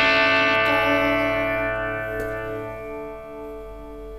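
A guitar chord rings out and slowly dies away as the song's closing chord.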